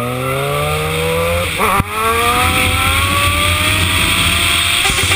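Suzuki GSX-R sport motorcycle engine accelerating hard: the revs climb, drop at an upshift about a second and a half in, then climb again more slowly. Wind noise rushes over the microphone throughout.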